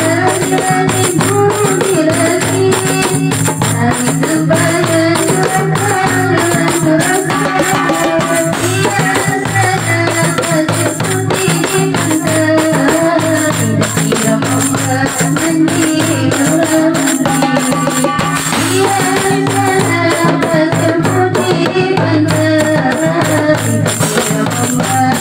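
Marawis ensemble playing: hand drums and jingling tambourine in a fast, steady rhythm under a female voice singing a wavering melody.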